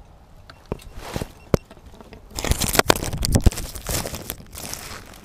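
Dry grass and straw crunching and rustling against the camera, with scattered knocks and clicks of the camera being handled; the crunching starts about two seconds in and is the loudest part.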